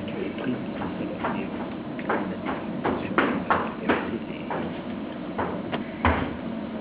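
Footsteps on a stage floor: a dozen irregular, sharp knocks of shoes, the loudest near the end.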